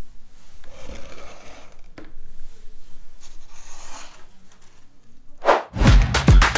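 Soft scraping and rustling kitchen handling sounds, with a single click about two seconds in. Near the end comes a whoosh, then electronic music with a heavy beat starts.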